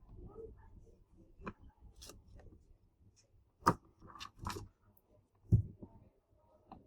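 Scattered clicks and knocks of small hard parts being handled and set down on a hard surface, with two sharper knocks, one a little past halfway and one about three quarters through.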